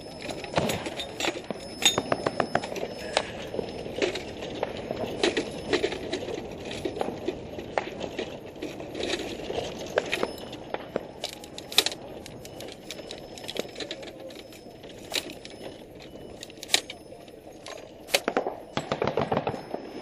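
Scattered gunshots in a firefight: single sharp cracks at irregular intervals, with a quick run of shots near the end, over steady background noise.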